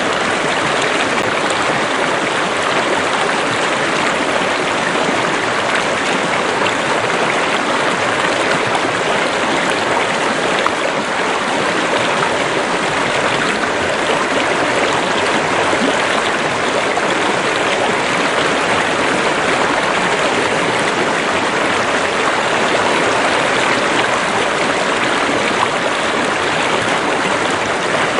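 Water of a stream or small river rushing and gurgling over rocks, steady and fairly loud.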